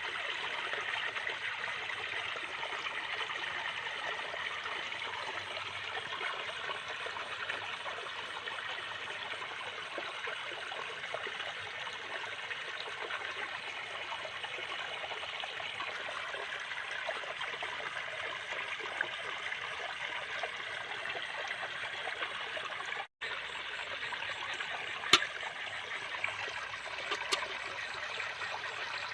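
Steady trickling and rushing of water, with a brief break a little over two-thirds of the way through and a few sharp clicks near the end.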